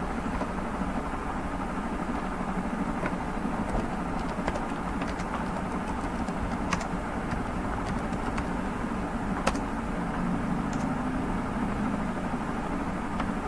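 Computer keyboard keys clicking in a dozen or so scattered taps as text is typed, over a steady low hum of background noise.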